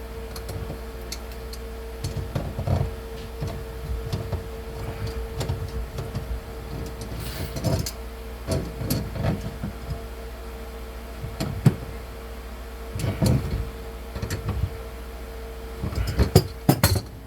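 Scattered knocks, clunks and thumps of hands and tools working on a kitchen sink installation, with a burst of sharper knocks near the end, over a steady hum.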